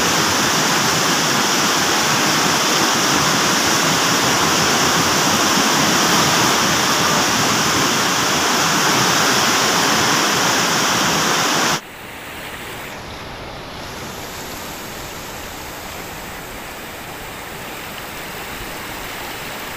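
Whitewater river rapids rushing loudly and steadily. About twelve seconds in the sound cuts abruptly to a quieter, more distant rush of the same river.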